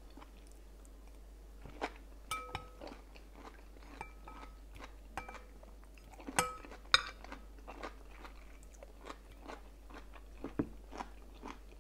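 Close-up eating sounds: chewing mouthfuls of mushroom curry and sticky rice, with a metal spoon clinking against a glass bowl several times, each clink ringing briefly.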